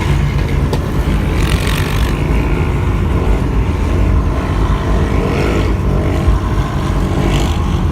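Sport quad-bike engines running under way, loud and steady, with brief surges of higher noise about a second and a half in and again near the end.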